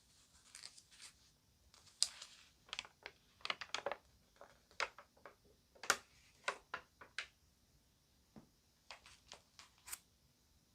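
Magazine pages crinkling as they are handled and turned: a quick, irregular run of short, sharp crackles with brief pauses between clusters.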